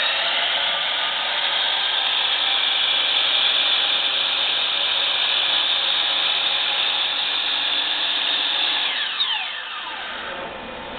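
Dewalt 12-inch sliding compound miter saw's motor and blade running without load, a steady high whine. About nine seconds in the trigger is released and the whine falls in pitch as the blade winds down.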